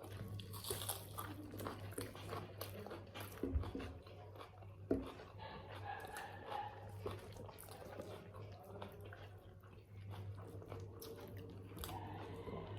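Close-up eating sounds of biryani: chewing and biting with many small clicks and smacks. There are two louder knocks about three and a half and five seconds in, and a steady low hum underneath.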